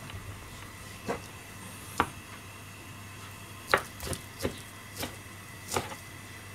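Kitchen knife slicing a small piece of food on a plastic cutting board: seven separate knocks of the blade on the board, irregularly spaced, over a faint steady hum.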